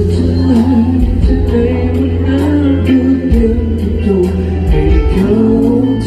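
A man singing live into a microphone over band backing, with a steady bass line and a regular beat.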